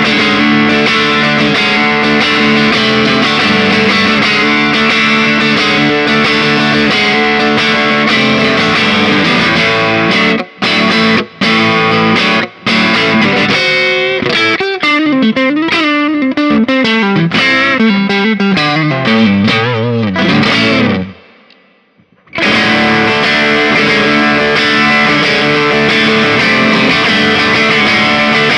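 FGN J-Standard Iliad JIL2ASHM electric guitar played with a crunchy, overdriven tone: chords broken by three brief sharp stops about a third of the way in. A single-note line with pitch bends follows and dies away into a short near-silent gap, then the chording starts again.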